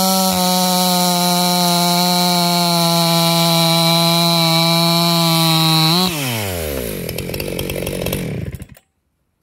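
Ported Jonsered 670 Super two-stroke chainsaw held at full throttle while cutting through a log, running at a steady high pitch. About six seconds in, the revs fall away as it comes out of the cut, and the sound cuts off suddenly near the end.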